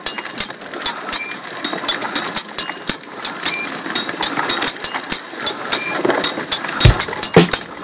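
Hand-cranked automaton's mechanism clicking and ticking as its crank is turned, sharp irregular clicks several times a second. Near the end a beat of deep thumps, about two a second, comes in.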